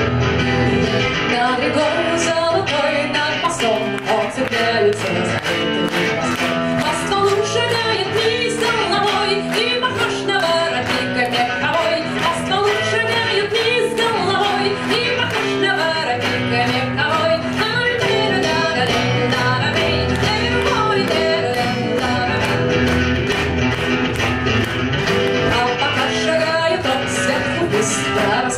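Live band performing a song: a woman singing over two electric guitars.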